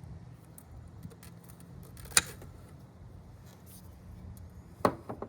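A copper battery cable being cut off: one sharp loud snap about two seconds in, then a couple of lighter clicks near the end as the tool is handled, over a low steady hum.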